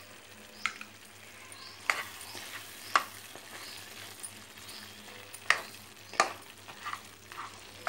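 Thick gongura mutton curry sizzling in a pan on the stove while a spoon stirs it, with a steady sizzle and about six sharp knocks of the spoon against the pan.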